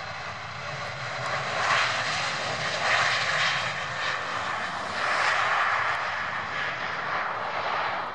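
Jet engines of a Boeing 737 airliner rolling along the runway: a rushing roar that swells and eases several times.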